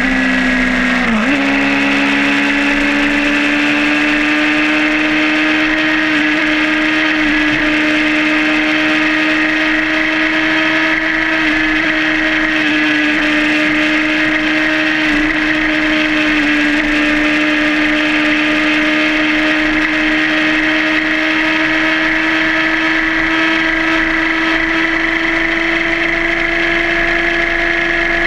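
Suzuki GSR600's inline-four engine running under way on the road. Its note dips briefly about a second in, then climbs slowly and steadily as the bike gathers speed.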